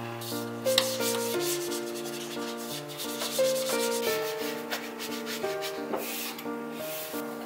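A cloth rubbing in repeated strokes, wiping down a cabinet panel and floor, over soft background music of sustained melodic notes.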